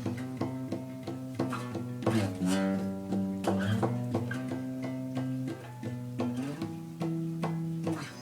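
Guitar played slowly, a run of single plucked notes and chords, each left to ring.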